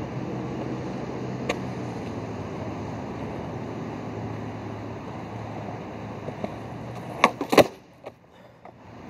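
Skateboard wheels rolling on a concrete sidewalk as a steady rumble. About seven seconds in come several sharp, loud clacks of the board's tail popping for a pop shuvit nose grab, then a few lighter knocks.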